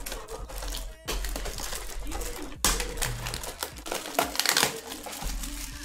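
Plastic shrink-wrap being torn and crumpled off a trading-card blaster box, giving a dense run of irregular crinkling and crackling.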